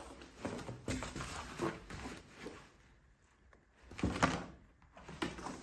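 Cardboard box being closed by hand: handling and pressing of the bubble-wrapped contents, then the cardboard flaps folded down with scrapes and dull thuds, the loudest about four seconds in.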